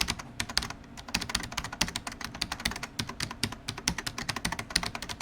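Fast typing on a keyboard: rapid, irregular clicks, several a second.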